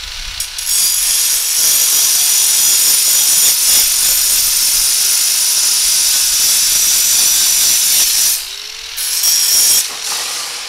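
Angle grinder with a cut-off wheel cutting through the steel wire of a cattle panel: a long, loud grinding cut from about a second in to about eight seconds, then a short second cut a second later, with the motor's whine running freely in between and afterwards.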